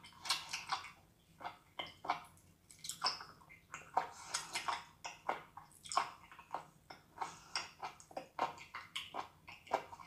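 Wet slurping and chewing of raw live octopus: a rapid, irregular run of squelching smacks and sucks, several a second.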